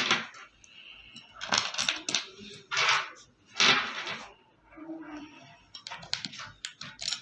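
Handling noise from fitting a chair armrest: bursts of rustling and small metallic clicks as screws and washers are set into the armrest bracket under the seat. The clicks come quickly together near the end.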